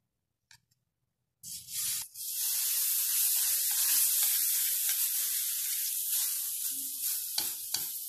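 Fruit batter sizzling as it is spooned into a little hot oil in a steel wok. A steady hiss starts about a second and a half in, and a few small clicks of the spoon come near the end.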